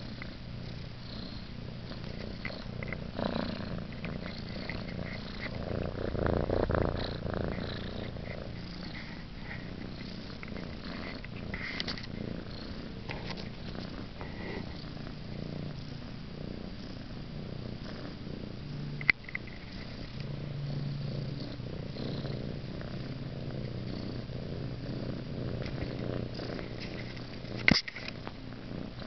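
An orange tabby kitten about eleven weeks old purring steadily, close up to the microphone, swelling louder briefly about a quarter of the way in. Two sharp knocks break in, about two-thirds through and near the end.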